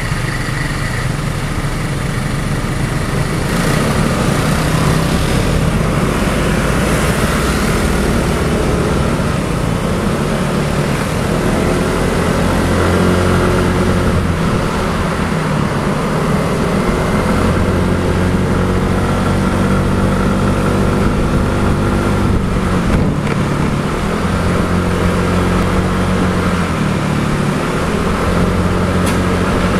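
Scooter engine running in city traffic, picking up from a standstill and rising and falling in pitch as it speeds up and eases off, over steady road noise and the engines of surrounding scooters.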